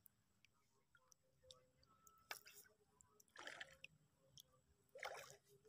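Near silence, broken by a few faint ticks and three brief, soft noises.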